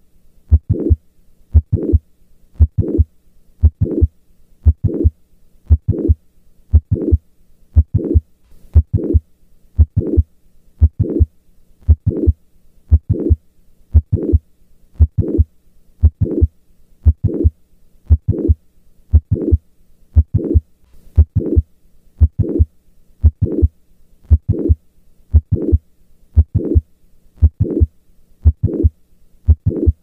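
Heart sounds recorded at the cardiac apex in mitral valve prolapse, beating steadily about once a second, each beat with a heart murmur.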